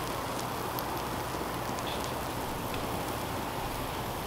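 Grilled ham-and-cheese sandwich frying in an oiled cast iron skillet: a steady sizzle with scattered faint crackles.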